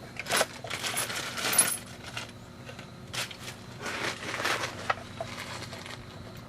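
Light metallic clinking and clattering of small metal objects being handled, a string of separate clinks with the loudest about a second and a half in.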